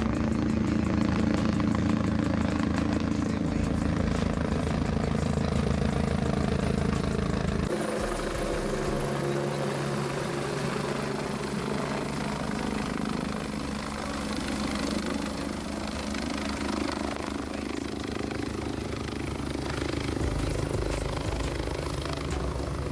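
Air ambulance helicopter flying low overhead, its rotor beat and engine running steadily. About eight seconds in the sound changes abruptly, losing its deep low beat and becoming thinner and slightly quieter.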